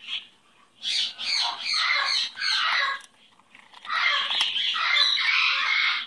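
Conure parrot squawking harshly: a brief call at the start, then about two seconds of choppy screeches, and another steadier two-second screech near the end.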